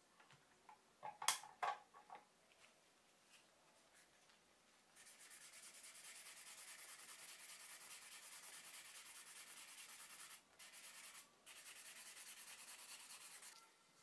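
A few light knocks as a small carved wooden piece is picked up, then from about five seconds in, fast hand-sanding strokes of sandpaper on the wood: a steady quick rubbing with two short breaks, stopping just before the end.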